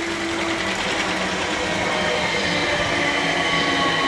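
South Western Railway Class 455 electric multiple unit running in along the platform: the electric traction motors whine in several steady tones that shift slowly in pitch, over the rumble of the wheels on the rails. It gets louder as the train draws near.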